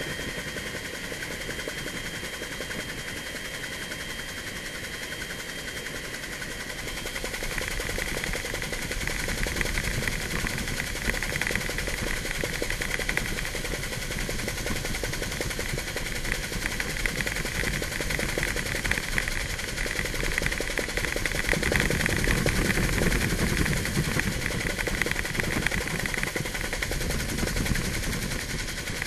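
Helicopter in flight heard from inside the cabin: a rapid steady beat of the rotor blades with a high whine over it, growing louder about a quarter of the way in and again later on.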